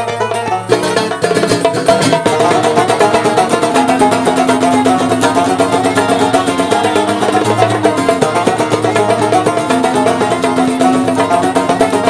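Instrumental break in an Algerian song: a fast plucked-string melody of rapid repeated notes, over held low notes.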